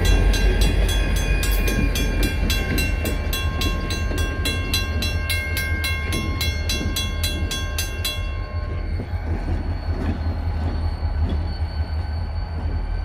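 WCH first-generation mechanical crossing bell ringing rapidly at several strikes a second, then stopping about eight seconds in as the crossing clears. Under it runs the steady low rumble of the BNSF diesel locomotives moving off.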